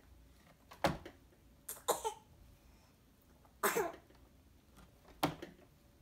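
A baby girl coughing and sputtering in four short bursts, about a second in, around two seconds, near four seconds and just after five seconds, while being spoon-fed pureed green beans.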